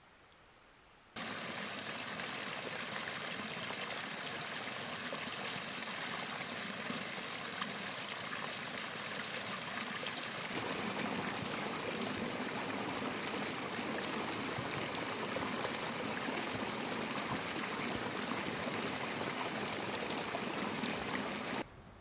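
A mountain stream running steadily. The sound starts abruptly about a second in, grows fuller and deeper at about ten seconds, and cuts off just before the end.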